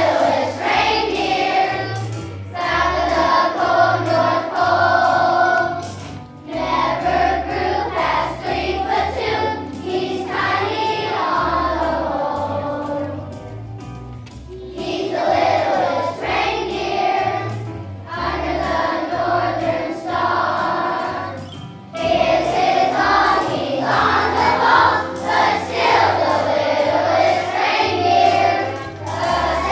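A choir of young children singing a song in phrases with short breaks, over a steady, pulsing instrumental accompaniment.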